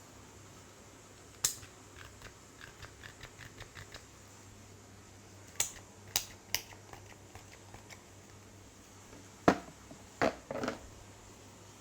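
Hands working on a head during a head massage: a sharp click, then a run of quick light taps at about five a second, three more sharp clicks, and three heavier thuds near the end.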